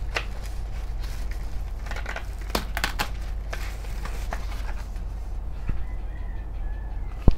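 Plastic bubble wrap crinkling and a cardboard box rustling as a bubble-wrapped headphone stand is handled and slid out of its box. There are irregular crackles, thickest about two to three seconds in, and a sharp click near the end.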